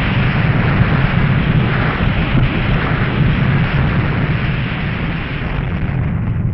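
A long, steady rumbling roar of dense noise with a heavy low end, easing off slightly toward the end. It is a sound-design explosion rumble.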